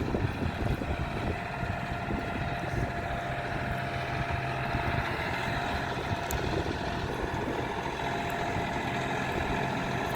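A vehicle engine running steadily, with wind noise over it.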